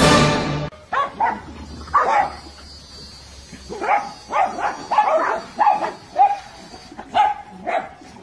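A dog giving a string of short yips and whines, about a dozen brief calls with bending pitch at irregular intervals. Music cuts off under a second in.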